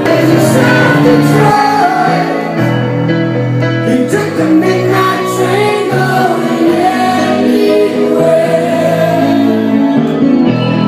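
A song playing: singing voices over sustained instrumental chords.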